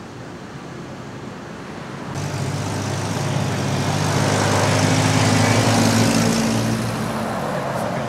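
A road vehicle driving past: engine and tyre noise swelling from about two seconds in, loudest around five to six seconds, then fading.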